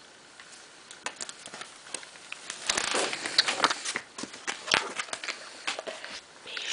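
A person snoring, in rattly, noisy snores, the longest about two and a half to four seconds in.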